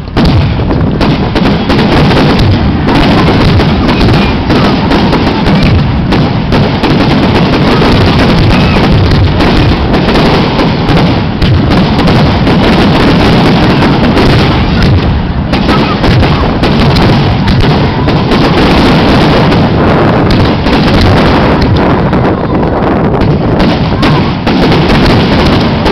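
Fireworks display going off: a loud, near-continuous barrage of bangs and crackling from many shells and fountains firing in quick succession, with no pause.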